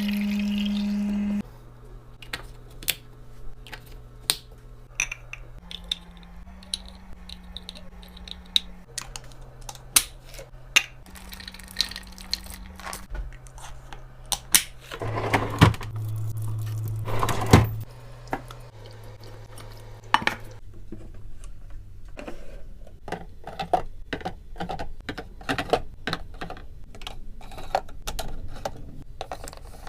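Items being handled and set down while restocking a mini fridge: a run of light clicks, taps and clinks, with a denser clattering about 15 to 18 seconds in. A low hum that steps between pitches runs underneath, loudest in the first second and a half.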